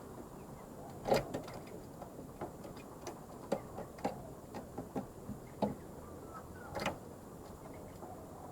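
Zebra dove (merbok) making faint, soft calls amid irregular sharp clicks and taps, the loudest click just after a second in and another near the end.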